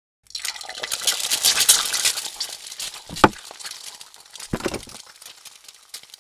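Dense clinking and rattling of small hard pieces, then a sharp click and a second knock a second and a half later as a plastic cooler's latch and lid are worked open, with faint clinks after.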